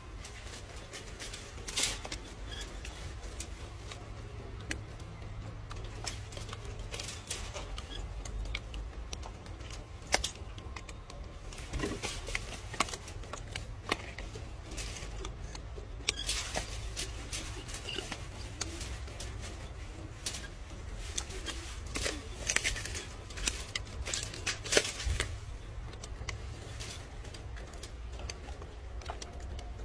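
Crisp crackling and snapping of a leek stalk being pulled apart and handled. Sharp clicks come in irregular clusters over a steady low rumble.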